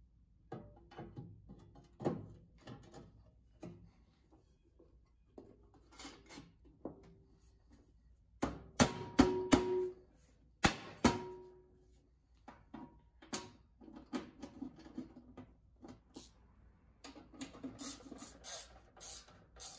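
Sheet-metal belly pan of a two-stage snowblower being fitted back over the frame: scattered knocks and scrapes of metal on metal, with a cluster of louder clanks and brief ringing about halfway through. Near the end come lighter clicks and rattles as the pan's bolts are started by hand.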